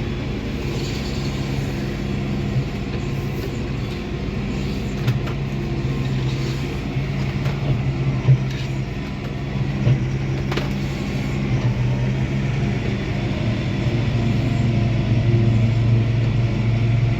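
Engine of a vehicle towing a loaded forage wagon, running steadily and heard from inside the cab. A few short knocks and rattles come through, and the engine gets a little louder near the end.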